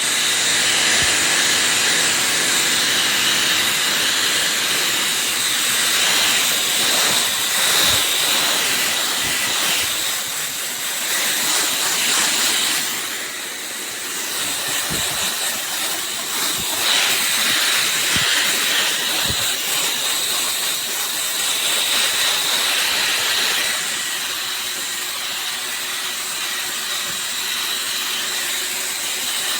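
EGFKI 5.2 HP high-velocity pet dryer blowing on its lowest setting: a loud, steady rush of air with a high motor whine. The air sound dips and swells as it goes.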